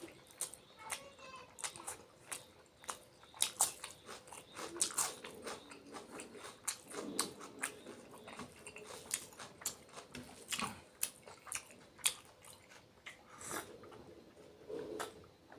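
A person eating rice, fish curry and drumstick (sajana) masala: irregular sharp clicks and smacks of biting and chewing, with now and then a softer, lower mouth sound.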